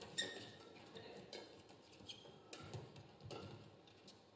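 Badminton rally: rackets striking the shuttlecock in an irregular series of sharp cracks, about one every second, with brief squeaks of court shoes on the mat, faint.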